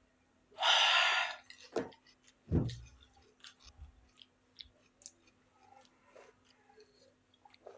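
Close-up eating sounds of rice and egg curry being chewed, with many small wet clicks of the mouth. About half a second in comes a loud rushing burst lasting under a second, then two low thumps.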